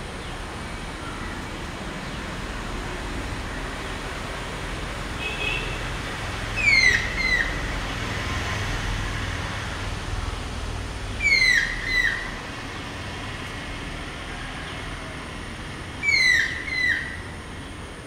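Stork-billed kingfisher calling three times, about every four to five seconds. Each call is a pair of loud, downslurred whistled notes, and it is the courtship call to its mate. A steady low rumble runs underneath.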